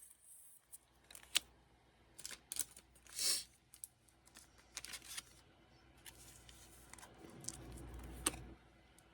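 Trading cards being slid into plastic protective sleeves: light clicks and plastic handling, with a short scraping rustle about three seconds in.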